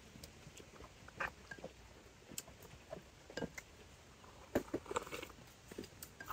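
People eating at close range: chewing and small lip smacks, with scattered sharp clicks of chopsticks on bowls. A sip of chicken broth is heard near the end.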